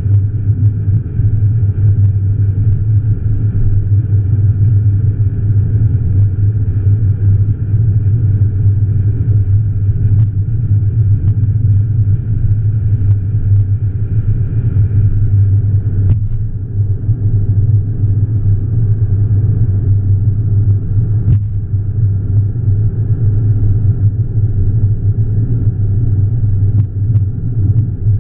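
Steady low rumble of road and tyre noise with engine drone inside a car cruising at highway speed, about 70 mph, with two faint ticks midway.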